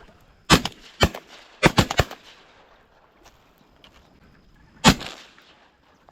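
A volley of shotgun shots at ducks: about five in the first two seconds, several of them close together as if from more than one gun, then a single shot about five seconds in.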